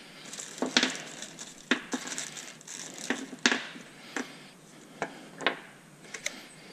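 Workbench handling noises as cartridge fuses are handled. Small metal and plastic parts click and clatter in a series of sharp ticks, and a plastic parts bag crinkles during the first couple of seconds.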